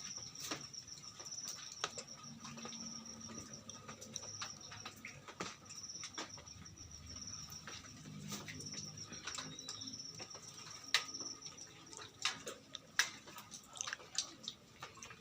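Aviary ambience: a high, rapidly pulsed insect-like trill that stops and starts, over many sharp taps and clicks from birds moving about the colony cage.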